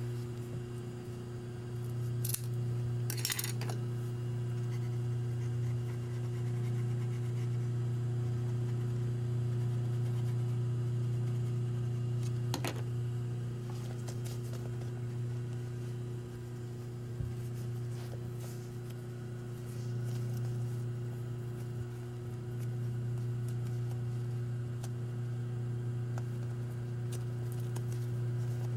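Scissors snipping tape, a couple of cuts a few seconds in and one more about midway, with fabric and tape being handled, over a steady low hum.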